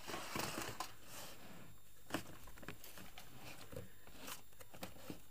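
Hands rummaging at a red plastic toolbox, rustling and clattering for about a second, then a few sharp plastic clicks and knocks as a plastic storage-unit drawer is pulled open.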